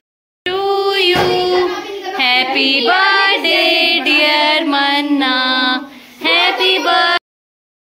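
A high-pitched singing voice holding long, drawn-out notes, with no clear instrumental backing. It starts just after a brief cut-out and breaks off abruptly about seven seconds in.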